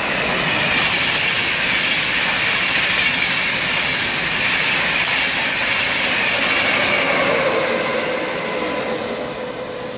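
An East Coast InterCity 225 electric train, a Class 91 locomotive with Mark 4 coaches, passing through the station at speed without stopping. It makes a loud, steady rushing roar of wheels and air that swells as it comes alongside and eases off near the end.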